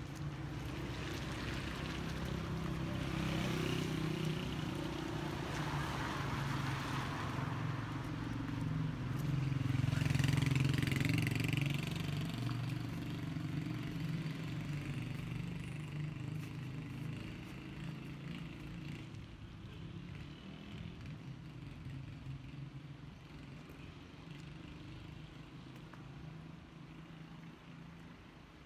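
A motorcycle passing on a wet, slushy street: its engine hum and the hiss of its tyres grow to a peak about ten seconds in, then fade slowly away as it rides off.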